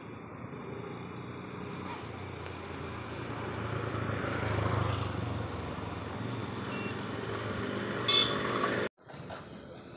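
Motorcycle engine idling with a steady low hum that gets somewhat louder about halfway through. Near the end the sound cuts off abruptly, then comes back quieter.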